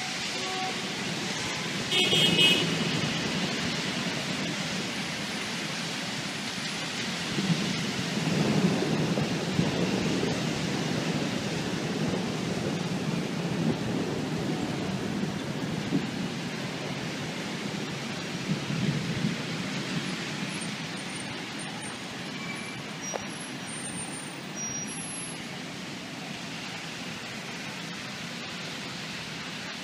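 Heavy thunderstorm rain falling steadily over city traffic. A short horn toot sounds about two seconds in, and low rumbles swell and fade several times before the downpour eases slightly near the end.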